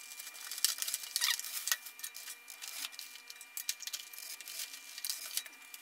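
Scattered light clicks, taps and rubbing from hands handling and fitting the foam parts of a model plane on a tabletop.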